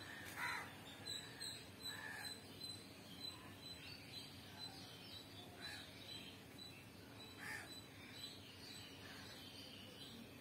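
A crow cawing several times: short, faint calls a few seconds apart.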